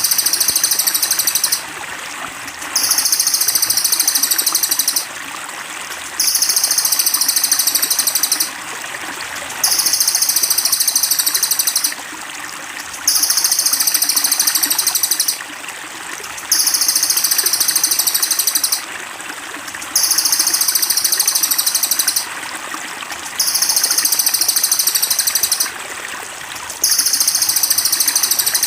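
A looped masteran recording of a high-pitched songbird trill. Each trill lasts about two seconds and comes back every three seconds or so, nine times over, on top of a steady trickle of running water.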